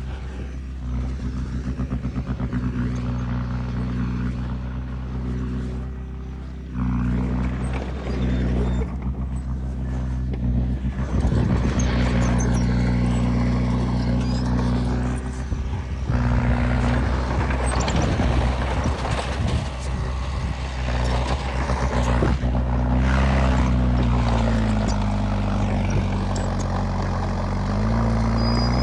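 Diesel engines of heavy earth-moving machinery working under load, the engine note dipping and rising a few times later on, with a rushing, clattering noise over it.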